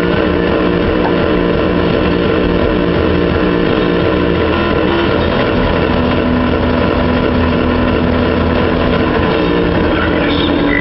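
Doosan DX300LC excavator running at working revs as it handles wet clay: a steady, loud engine and hydraulic drone. The pitch wavers in the first half and settles to a steady tone about halfway through.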